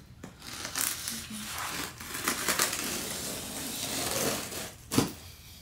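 A blade slitting the packing tape along a large cardboard box, a scraping, tearing noise lasting several seconds. A single sharp knock comes near the end.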